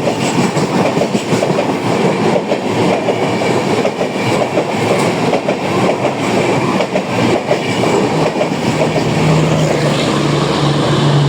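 Coaches of an express train passing at speed: a loud, continuous rush and rattle with rapid clickety-clack of wheels over rail joints. A steady low hum joins about eight seconds in.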